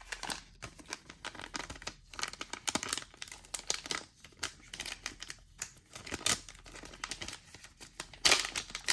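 Crinkling and tearing of a trading-card pack wrapper being opened, a run of quick crackles and rustles with a louder rip near the end.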